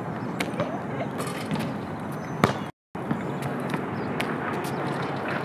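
Basketball shooting on an outdoor court: a few sharp knocks of the ball off the rim, backboard or pavement, the loudest about two and a half seconds in, over steady outdoor background noise. The sound cuts out briefly about three seconds in.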